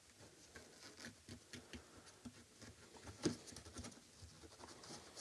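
Faint, irregular small scratching and tapping as vinegar is worked by hand onto the corroded port contacts of a PC expansion card. One sharper tap comes about three seconds in.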